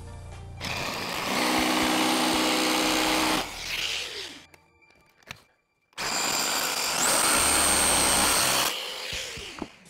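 Festool Carvex jigsaw cutting through plywood in two runs. It starts about half a second in and stops suddenly a little after four seconds. It starts again at about six seconds and runs until just before the end.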